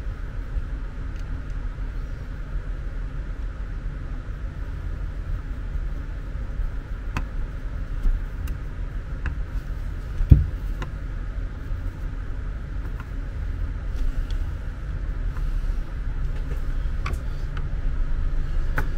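Light clicks and taps of small parts and a screwdriver being handled during actuator assembly, with one louder knock about ten seconds in, over a steady low rumble.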